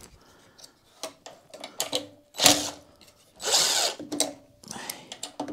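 Cordless drill-driver with a socket bit spinning in several short bursts, the longest about half a second around the middle, as it backs out the 10 mm bolts holding a small engine's valve cover.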